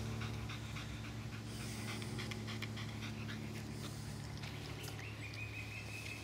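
Staffordshire bull terrier panting fast with its tongue out, catching its breath after agility work on a hot day. A steady low hum runs underneath.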